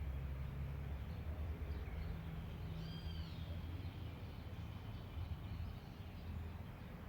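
Countryside bird calls: scattered faint chirps and one clear arched call about three seconds in, over a low rumble that slowly fades.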